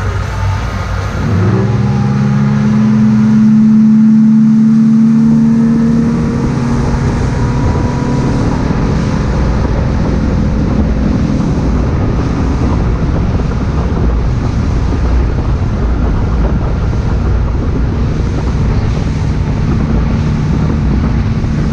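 Boat engine running under way, with rushing wind and water noise. The engine note comes up strongly about a second and a half in, then holds a steady hum.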